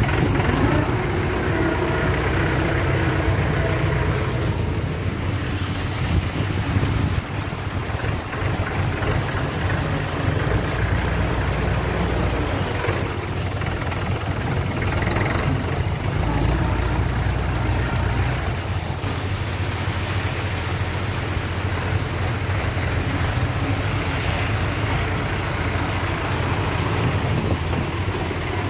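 Mahindra 475 tractor's diesel engine running steadily while working its front loader, with a low drone that shifts in level a few times as the loader scoops and lifts paddy.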